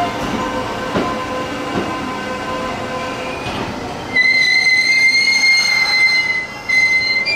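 An electric commuter train moving through the station. About four seconds in, a loud, steady high-pitched squeal starts from its wheels on the rails and lasts about three seconds, with a brief dip near the end.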